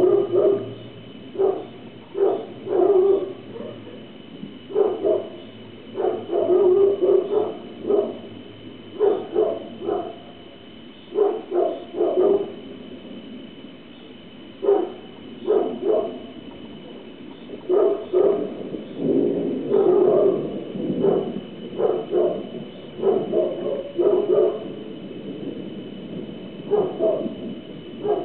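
A dog barking repeatedly in short bouts of several barks, with gaps of a second or two between bouts. The barking comes most thickly in the last third.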